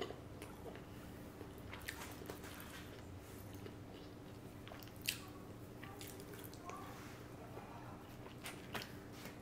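Faint chewing of sushi rolls, with small scattered mouth clicks and a slightly sharper tick about five seconds in, over a faint steady hum.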